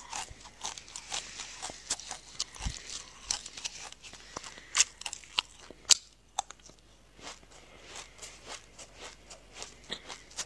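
Black sesame seeds being crunched and chewed: a rapid crackle of small sharp clicks. Near the middle the crunching thins to sparse, softer ticks.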